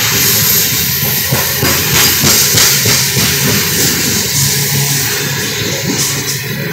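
Freight train of open-top hopper cars rolling past close by: a steady rumble and hiss of steel wheels on the rails, with many irregular clicks and clanks.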